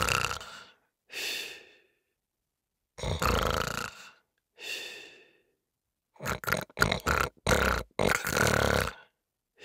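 Performed sleep sounds for a puppet dog dozing off: heavy breaths in and out, some with a low rattling snore, twice over, then a quick run of short snorts about six seconds in and one longer breath near the end.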